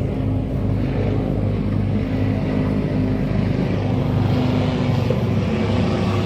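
A steady low engine drone with a constant hum, holding even throughout.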